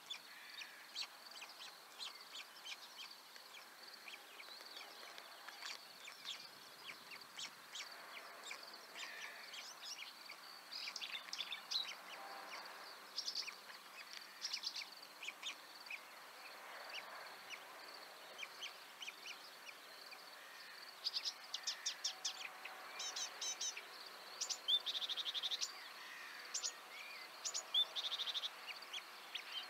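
Dawn chorus of small songbirds: many short chirps and whistled phrases, with louder rapid trills in the last third. A faint steady high-pitched tone runs underneath.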